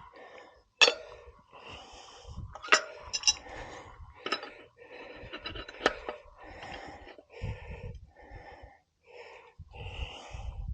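Heavy, straining breaths from a person levering a rim repair tool against a bent motorcycle wheel rim, with a few sharp metallic clinks of the tool on the rim.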